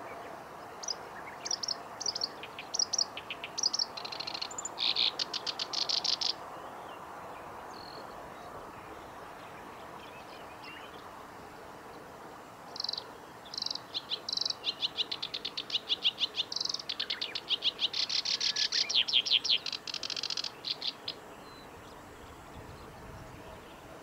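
Black-browed reed warbler singing in two bouts of quick, high repeated notes and fast trills: the first starts about a second in and lasts some five seconds, the second starts about halfway through and runs about eight seconds.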